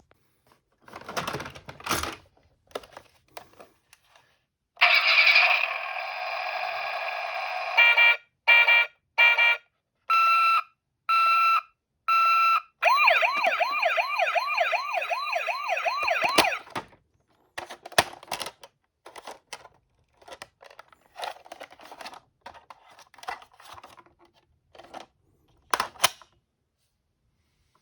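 Ambulance siren sound: a steady tone for about three seconds, then short alternating high-low beeps, then a fast warbling wail that cuts off suddenly. Before and after it, small die-cast toy ambulances clatter and knock as they run down a slope.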